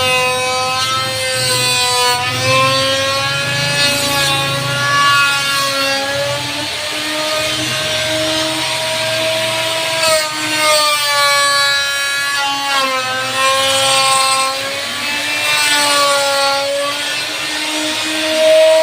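Electric woodworking power tool running and cutting wood, its motor whine sagging in pitch and recovering every few seconds as it takes load.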